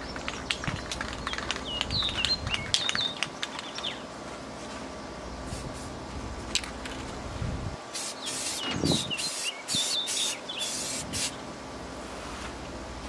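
Aerosol spray-paint can spraying in a series of short hisses, most of them bunched from about eight to eleven seconds in. A songbird chirps twice, and a scatter of light clicks comes in the first few seconds.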